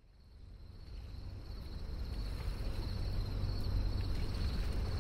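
Outdoor city ambience fading in from silence over the first two seconds: a low rumble underneath, with a steady high chirring of insects.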